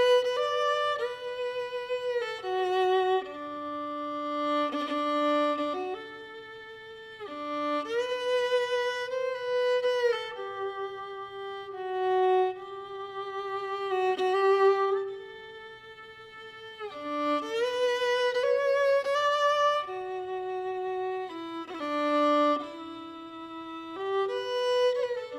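Solo violin music: a slow melody of held notes played with vibrato, in phrases a few seconds long.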